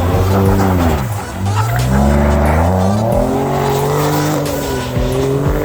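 A car engine revving hard as the car is drifted on snow, its pitch climbing and falling over and over, with brief drops about one second and three seconds in as the throttle comes off.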